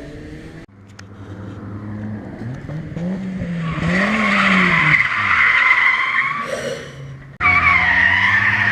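A drifting car: the engine rises and falls in pitch, then the tyres squeal loudly from about four seconds in. The sound cuts off abruptly about seven seconds in and the tyre squeal starts again at once.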